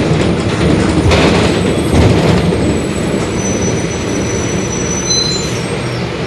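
Mercedes-Benz OF-1721 Bluetec 5 city bus heard from inside the cabin while moving: a loud, steady drivetrain and road rumble with the differential droning, and thin high-pitched squeals over the second half.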